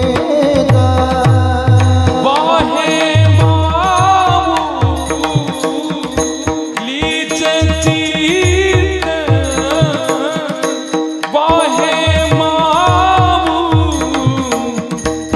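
A Marathi kirtan chal, a devotional tune, sung solo with melismatic gliding phrases over a steady held drone and repeated low drum strokes.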